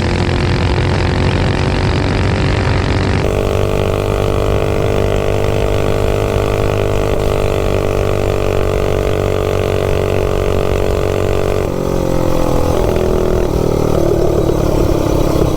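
Minibike's stage 3 clone single-cylinder engine running at steady high revs under way, its pitch slowly sagging, then dropping and wavering about three-quarters of the way through before picking up again near the end. It is running on a Nibbi carburetor with a 125 main jet.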